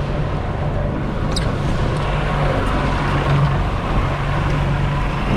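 Outboard motor running steadily at trolling speed, with water rushing in the boat's wake.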